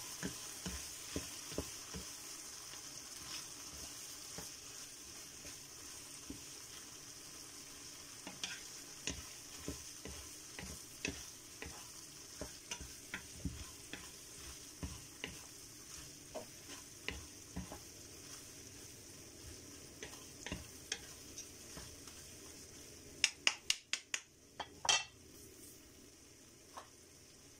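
Ground pork frying in a nonstick pan, sizzling softly while wooden spatulas stir and scrape it with frequent light knocks against the pan; the sizzle slowly dies down. Near the end, a quick run of sharp clacks, the loudest sounds.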